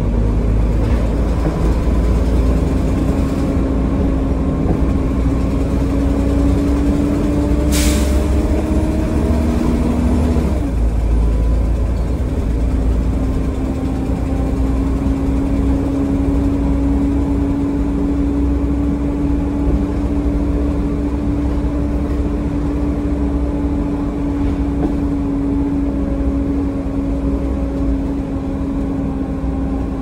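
Volvo B7TL double-decker bus under way, heard from the upper deck: heavy engine rumble with a whine that rises, drops suddenly about ten seconds in as the ZF gearbox changes up, then holds steady. The exhaust is blown. A short hiss comes about eight seconds in.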